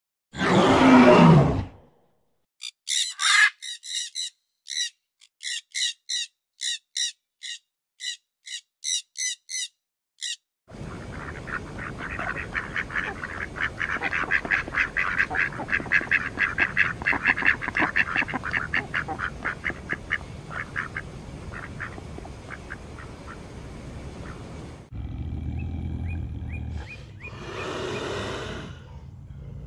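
A loud gorilla call about a second and a half long at the start, then a run of short quacks about once a second, then a flock of mallard ducks quacking and chattering rapidly for a long stretch. Near the end, over a low hum, comes one growl-like leopard call.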